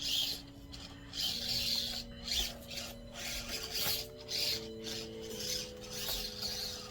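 Axial SCX24 Deadbolt 1/24-scale crawler working over the course: irregular rasping and scraping from its drivetrain and tyres on the obstacles. Soft background music of held notes that change every second or so runs underneath.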